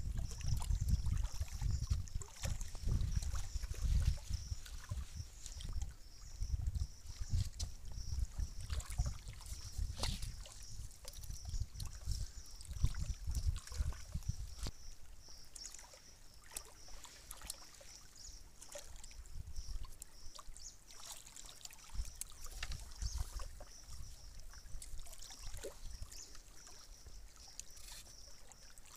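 Wind buffeting the microphone in gusts, heaviest in the first half, over water lapping at a rocky lakeshore, with a steady high-pitched chirring.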